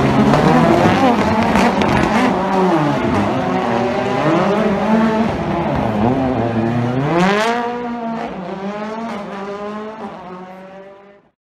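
Rally car engine revving hard, its pitch climbing and dropping again and again through gear changes. After a last sharp climb about seven seconds in, it fades steadily as the car pulls away, then cuts off suddenly near the end.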